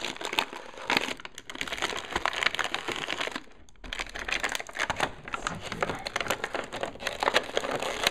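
Clear plastic blister packaging crinkling and crackling as hands bend and pull it to free a toy playset and its figures, with a short pause a little past halfway.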